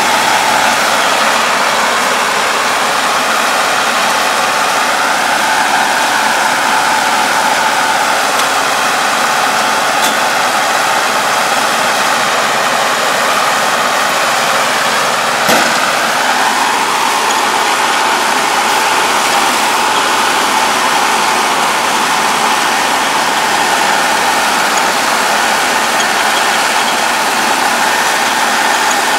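Kubota tractor's diesel engine running steadily as it pulls a round baler through rice straw. A single sharp knock comes about halfway through.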